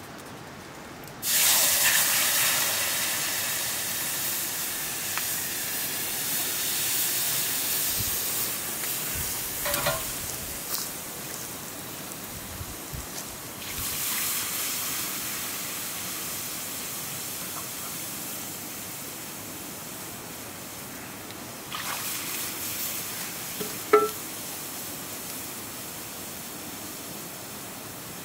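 Water poured into a hot black iron wok of dried meat over a wood fire, hissing and sizzling loudly as it hits the pan. The hiss starts about a second in and fades slowly; a second pour hisses about halfway through and a third near the end. A sharp knock comes shortly after the last one.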